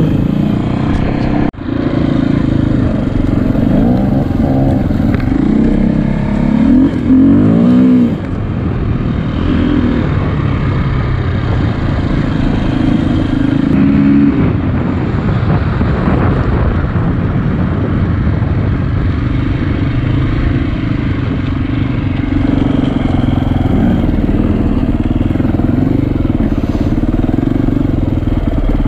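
KTM enduro motorcycle engine running under load on a dirt trail, revving up and down with the throttle, with a sharp rising rev about six to eight seconds in.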